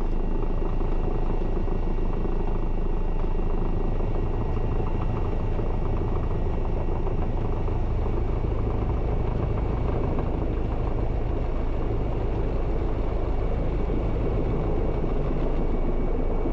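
Airbus EC135 twin-turbine helicopter in flight on a landing approach, heard from inside the cockpit: steady rotor and engine noise with a deep rumble and a faint high whine, as it slows and descends toward the landing point.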